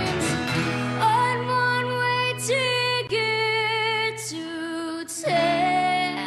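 A girl singing a country song with guitar accompaniment, holding long notes with vibrato and moving between a few sustained pitches.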